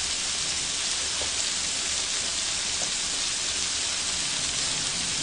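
Thin-sliced pork belly wrapped around shrimp, with king oyster mushroom slices, sizzling steadily on a hot grill plate.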